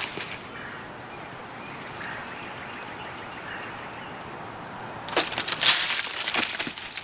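Steady outdoor hiss, then about five seconds in a close burst of sharp crackling and rustling that lasts about two seconds.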